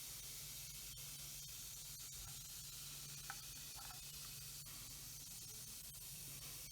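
Faint steady fizzing of an effervescent toy egg dissolving in a bowl of water, over a low steady hum, with a few faint ticks.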